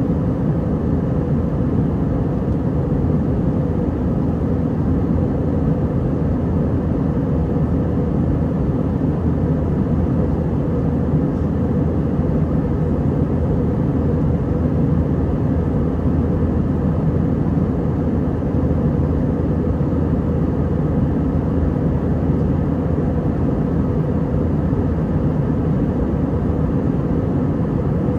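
Steady cabin noise inside an Airbus A320 in flight: an even rush of airflow over a low engine hum that stays at one level throughout.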